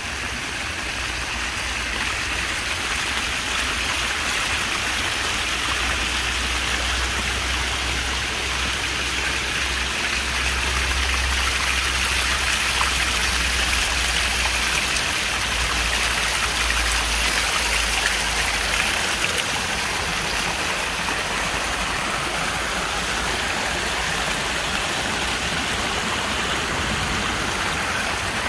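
Stormwater running down stone stairways in small cascades and streaming along their edges: a steady rushing, with rain still falling.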